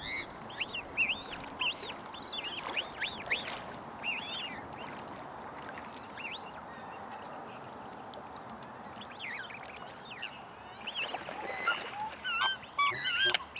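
Black swans and their cygnets calling: a run of short, high, rising-and-falling calls in the first few seconds, a lull, then more calls building up near the end, over a light wash of water.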